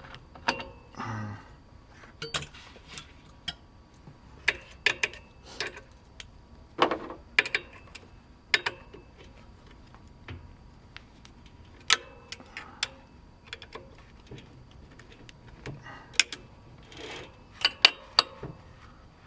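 Hand tools working on a BMX bike's parts: irregular sharp metallic clicks and knocks, with a few short rattling scrapes, as components are loosened and taken off.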